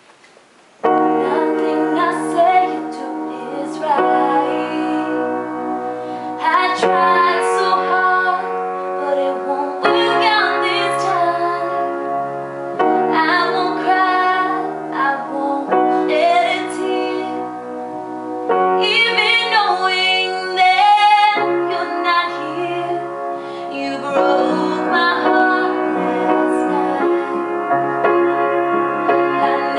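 A woman singing a slow ballad while accompanying herself on a grand piano. The piano comes in about a second in with sustained chords that change every few seconds.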